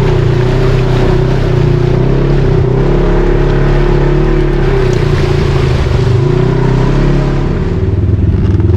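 Off-road vehicle engine running steadily under load, with a short dip in level near the end before picking up again.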